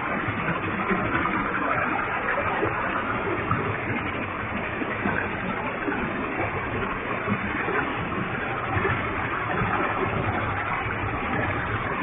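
Waterfall with a heavy flow of water, a steady even rush of falling and splashing water.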